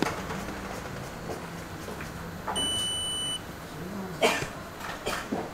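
A single electronic beep of just under a second from workshop equipment, followed by a few sharp clicks of metal tweezers against a metal reballing stencil.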